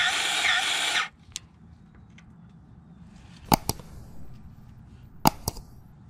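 Background music that cuts off about a second in. Then a grease gun working at a backhoe's pivot grease fitting: a few light clicks and two pairs of sharp metallic clicks.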